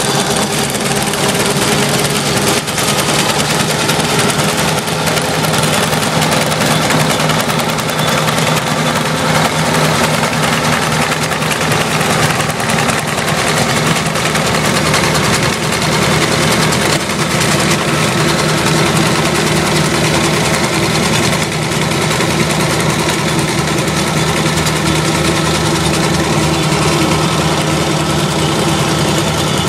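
A Kubota compact tractor's diesel engine runs steadily under load while the PTO-driven Toro ProCore aerator behind it drives its coring tines into the fairway turf with a fast, continuous clatter.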